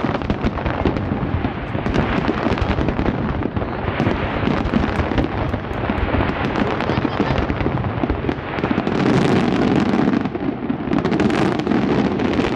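Fireworks display: a dense, continuous barrage of shells bursting in rapid bangs and crackle, growing heavier about nine seconds in.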